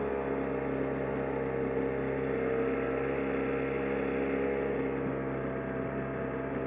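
5 hp Tohatsu outboard motor running steadily at cruising speed, pushing a small boat along, with an even, unchanging engine note.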